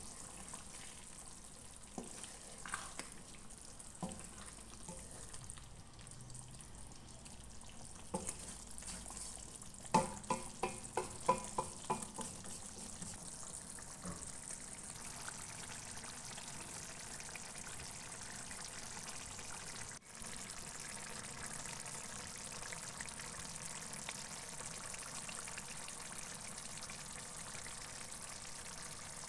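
Tuna fish curry simmering in a black iron karahi, a steady hiss with scattered clicks. About ten seconds in comes a quick run of about six ringing metal taps.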